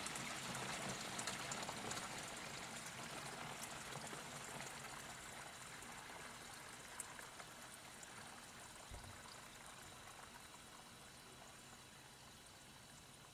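Coolant draining out of a Caterpillar 3412 diesel engine into a container, a steady pouring stream that gradually weakens.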